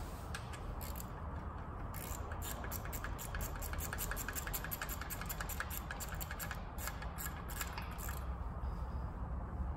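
A socket ratchet clicking in fast runs, several clicks a second, as a bolt down by the timing-belt tensioner on a 2JZ-GTE engine is worked. The clicking starts about two seconds in and stops about eight seconds in.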